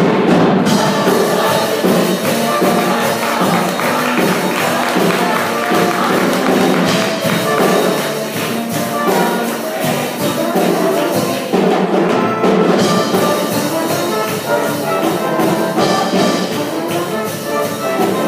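Show choir performance: a large mixed choir singing an upbeat number over instrumental accompaniment with a steady percussion beat.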